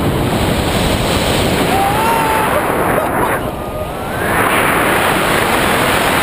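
Loud, steady wind rushing over the camera microphone on a tandem paraglider at speed through tilting turns, with two faint rising tones about two and four seconds in.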